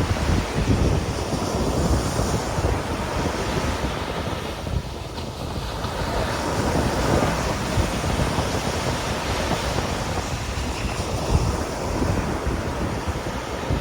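Ocean waves breaking and washing in steadily, with wind buffeting the microphone.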